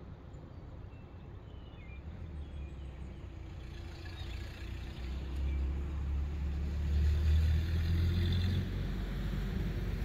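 A low rumble that swells about five seconds in and eases a little near the end, with a few faint bird chirps about two seconds in.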